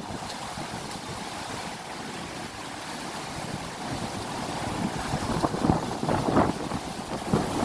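Strong wind blowing and buffeting the microphone, a steady rush that builds over a few seconds, with heavier gusts near the end.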